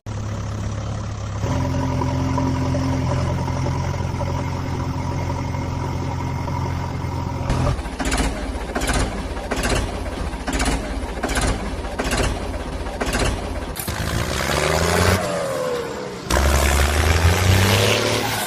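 Vehicle engine running with a steady low hum, then a regular clacking about two times a second, then rising and falling revs and a louder run near the end.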